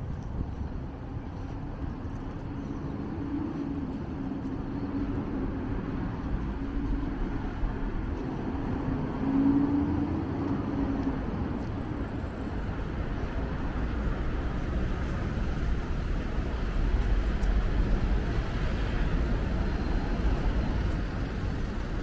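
City street traffic: motor vehicles passing over a continuous low rumble, with an engine's steady hum through the first half and louder swells as vehicles go by about halfway and again near the end.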